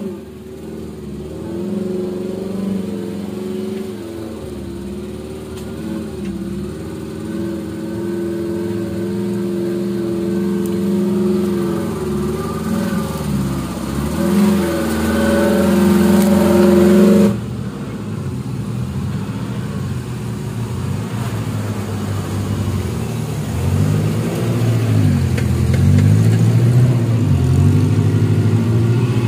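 Suzuki Jimny 4x4 engines revving up and down as the off-roaders work along a muddy trail. About 17 s in the sound cuts suddenly to a second, deeper-pitched engine, which grows louder near the end.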